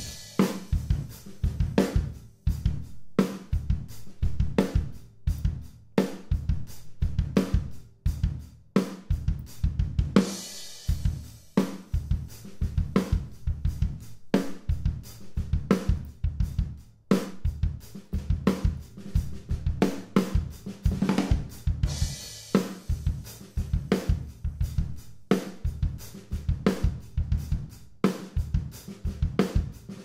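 Drum kit recording heard through a stereo pair of floor-level room microphones, compressed by a Neve 33609 plugin: kick, snare and hi-hat keep a steady beat with a roomy, ambient sound. Cymbal crashes ring out twice, about ten seconds in and again about twenty-two seconds in.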